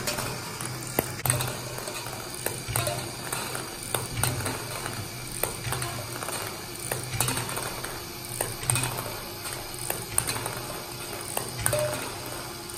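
Plastic ping pong balls rolling down a metal ball-roller track, clicking and clinking irregularly as they hit the metal rails and wire guides, over a low pulsing hum.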